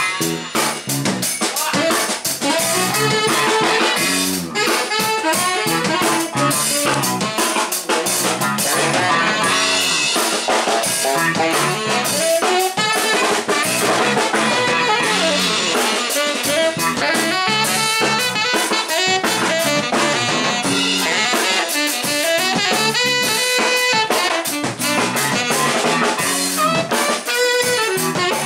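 A funk band playing live: a drum kit with snare rimshots, electric bass, keyboards and a horn section of saxophone and trombone.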